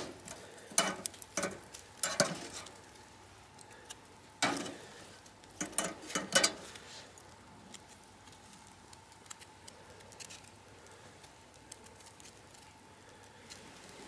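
Wood fire crackling, with a run of sharp pops in the first half and only sparse faint ticks afterwards.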